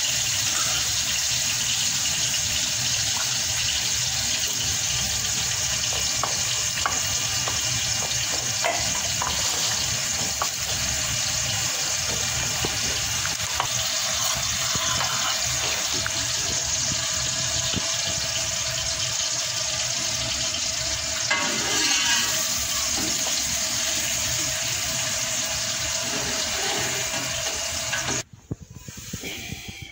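A steady, loud rushing noise like running water, with a few faint clicks from the wooden pestle and spoon working in the mortar; the rushing cuts off suddenly near the end.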